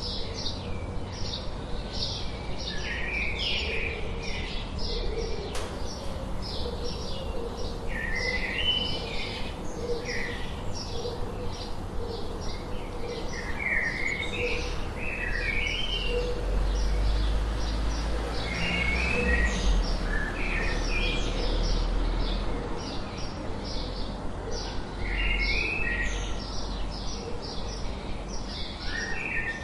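Songbirds chirping rapidly all through, with several short warbled phrases of a few notes, over a low rumble that swells in the middle.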